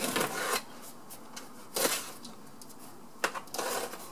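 Packing tape on the top of a cardboard box being cut and pulled by hand to open it, heard as scraping, rasping bursts: one at the start, a short one about two seconds in, and a longer one near the end.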